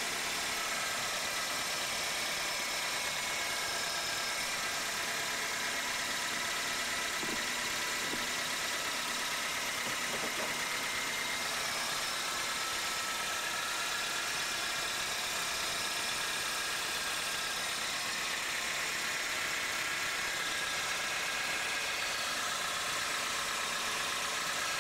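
2002 Toyota Corolla engine idling steadily, with a steady high-pitched tone from the belt-driven accessories over the engine noise. The cause turned out to be a weak serpentine belt tensioner pulley letting the belt run too loose, though at first it sounded like the alternator.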